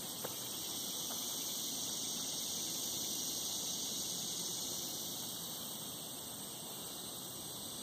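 Steady high-pitched drone of a summer insect chorus, swelling a little in the middle and easing off near the end, over a fainter low rustling hiss.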